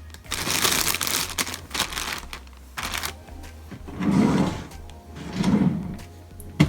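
Plastic packaging bag rustling and crinkling in bursts as it is handled, with a sharp click near the end.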